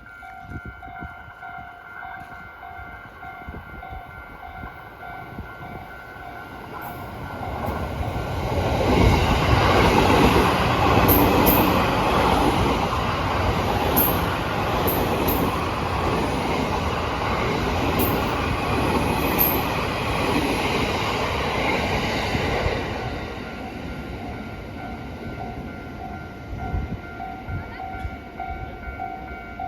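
A level-crossing warning bell rings in steady repeated dings as a JR East E231 series 800-numbered electric train passes. The train's noise swells about eight seconds in and stays loud, with sharp clicks, until it fades after about twenty-three seconds. The bell can be heard ringing on afterwards.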